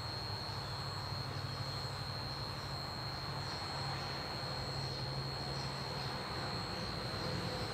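Ambient room sound: a steady high-pitched insect trill over a low, steady hum.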